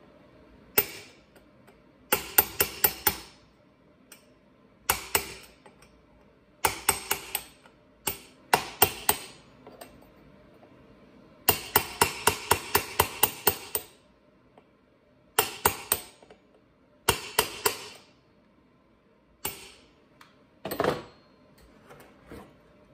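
Hammer tapping on a steel tool held against a chainsaw's clutch, in short runs of light, ringing metal taps with pauses between, to rock loose a piston seized in its cylinder. A duller clunk comes near the end.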